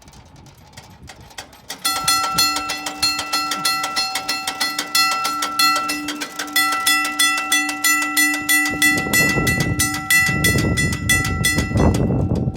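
Union Switch & Signal teardrop crossing bell ringing with rapid, evenly repeated strikes, starting about two seconds in: the crossing's warning signals are activated. From about nine seconds in a low noise sounds under the bell.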